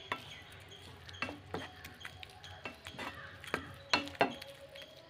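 A spoon stirring vermicelli cooking in milk in a pan, with a dozen or so light, irregular clinks and taps of the spoon against the pan, a little louder just after the middle.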